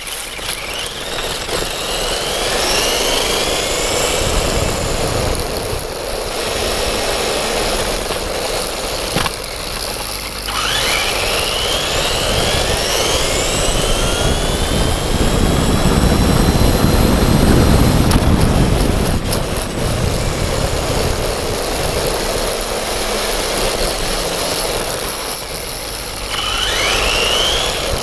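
Traxxas E-Revo VXL radio-controlled truck running: its brushless electric motor whines up in pitch each time it accelerates, three times, over a steady rushing noise, with a louder low rumble about midway.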